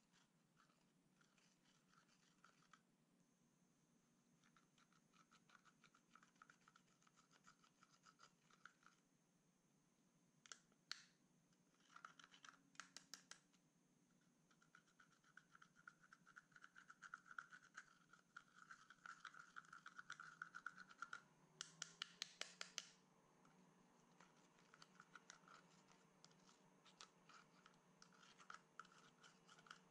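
Faint scratching and ticking of a small applicator scraping pressed eyeshadow powder out of a palette's pans. The strokes are sparse at first and come thick and fast in a run past the middle.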